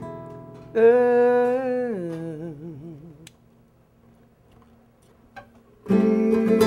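A man's voice holds a sung note, then drops in pitch with a wide vibrato and fades into a brief pause. Near the end a nylon-string classical guitar comes back in with a loud strummed chord.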